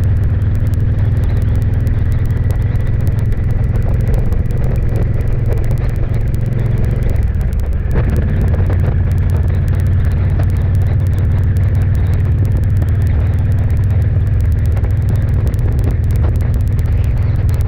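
A road vehicle driving at a steady cruising speed: a constant low engine and road drone that does not change.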